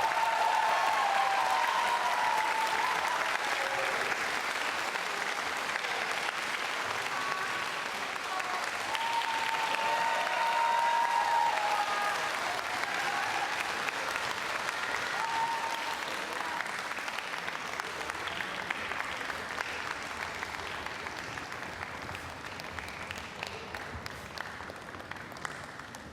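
Audience applauding, with a few voices calling out. The applause slowly fades and thins to scattered claps near the end.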